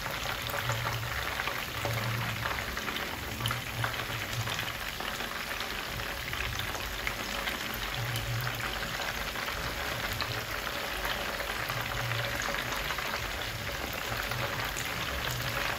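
Croaker fish pieces frying in hot oil in a pan: a steady crackling sizzle of bubbling oil.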